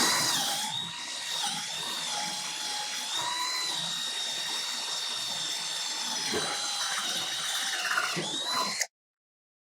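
Cordless drill running steadily under load in a wooden board, a high motor whine that sags slightly in pitch now and then as the bit bites. It runs for about nine seconds and cuts off suddenly near the end.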